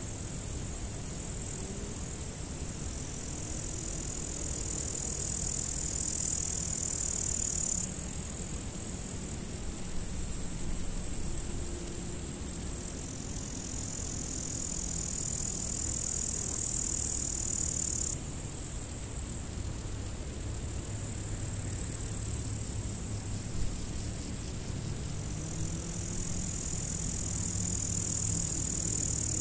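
Evening chorus of crickets, a steady high-pitched trill that shifts abruptly in strength a few times, with a faint low hum underneath.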